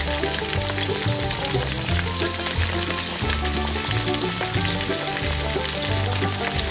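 Coated fish fillets deep-frying in hot oil: a steady, dense crackling sizzle. Music with a low bass line plays underneath.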